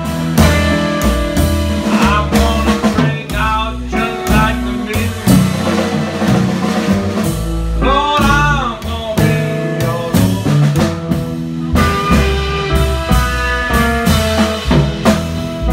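Live blues band playing: a guitar lead with bent, wavering notes over upright bass and drums.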